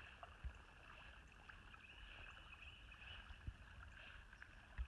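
Near silence: faint pond ambience with the soft water noise of a dog swimming, a thin steady high chatter and a few soft low thumps.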